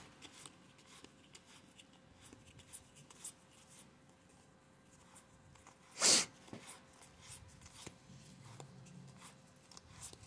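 Faint clicks and rustles of a stack of 2022 Topps Update baseball cards being thumbed through one at a time and passed from hand to hand. About six seconds in there is one short, sharp burst of noise, louder than the card handling.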